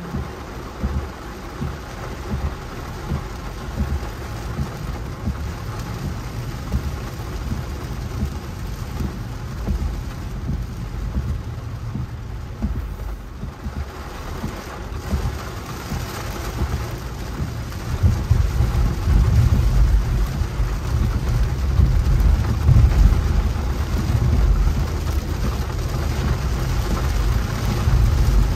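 Rain falling on a car's windshield and roof, heard from inside the cabin while driving, with low road and engine noise beneath. About two-thirds of the way through the low rumble grows clearly louder.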